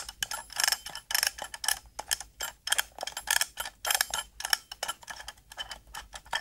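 Strawberry-shaped mechanical kitchen timer ticking: its clockwork gives a rapid, steady run of sharp clicks, several a second, as it counts down.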